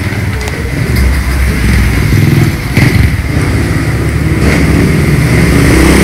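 A motor vehicle engine running with a wavering pitch, growing louder toward the end.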